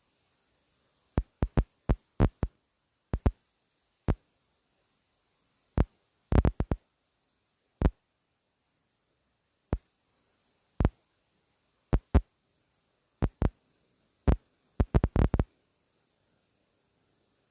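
Irregular sharp knocks and clicks, about two dozen in all, some coming in quick clusters, with almost nothing between them.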